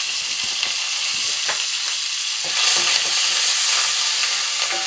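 Curry leaves and coriander leaves sizzling in hot sesame oil with whole spices in a stainless steel pan, being stirred, with small clicks and scrapes of the utensil against the pan. The sizzle gets louder about two and a half seconds in.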